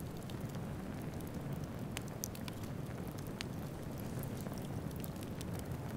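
Outdoor ambience: a steady low rumble with scattered faint crackles and ticks.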